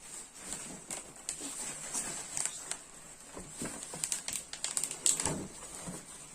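Irregular clicks, knocks and rustling of packaging and gaming-chair parts being handled and unpacked from a box.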